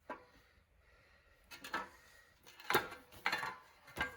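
Small metal bicycle parts and tools clinking and knocking as they are handled and set down on a workbench, about five short knocks spread over a few seconds.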